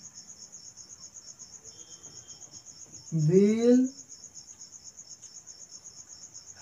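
Cricket chirping in a steady, high-pitched pulsing trill throughout.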